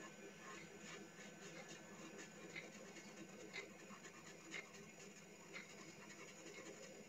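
Very faint scratching of a cotton swab rubbed over pencil shading on paper to blend it, with a few soft irregular ticks, over a low steady room hum.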